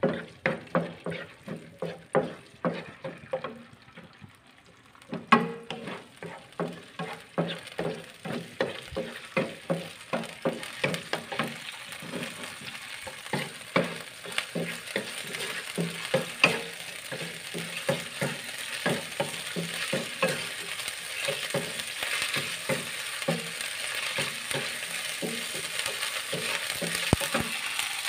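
Wooden spatula stirring shelled field snails in a nonstick frying pan, scraping and tapping about twice a second, with a short pause about four seconds in. Under it the oil sizzles, the hiss growing steadily louder through the second half as the oil heats up.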